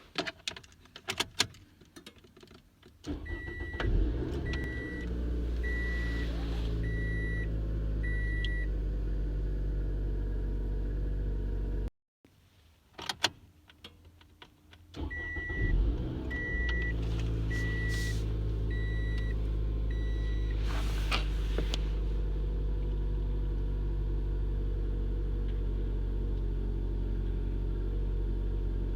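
A car being started, twice. Each time a few sharp clicks come first, then the engine cranks briefly, catches and settles into a steady idle. While it idles a dashboard warning chime beeps five times. The first idle cuts off abruptly and the whole start-up repeats, idling on to the end.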